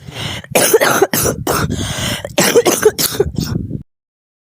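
A woman coughing in a long fit: about a dozen harsh coughs in quick succession that cut off suddenly near the end.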